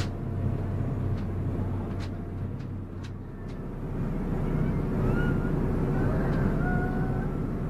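Sightseeing boat's engine running steadily with a low drone, mixed with the rush of water and wind along the open deck.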